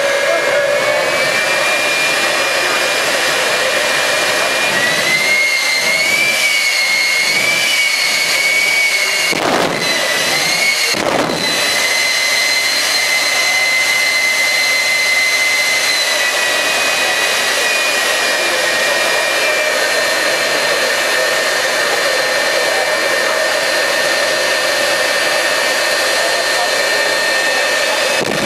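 Jet engine of a jet-powered drag truck running with a steady high whine over a roar. The whine wavers and climbs a little about five seconds in, then holds steady.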